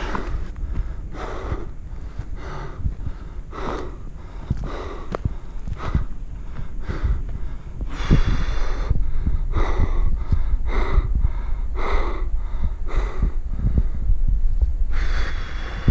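A man breathing hard and fast, with a quick, even run of breaths, as he climbs a steep mountain trail, out of breath from the exertion.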